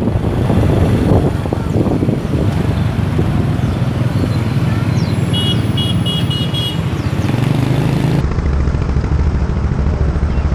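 Motorcycle engine running steadily while riding through traffic, with other motorbikes passing close by. A quick run of high beeps sounds about halfway through, and the engine hum drops lower about eight seconds in.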